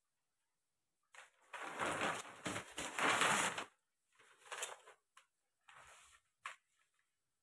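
A large sheet of pattern paper rustling and crinkling as it is unfolded and spread flat by hand. There is a long stretch of rustling from about a second in, then a few shorter rustles and one sharp crinkle near the end.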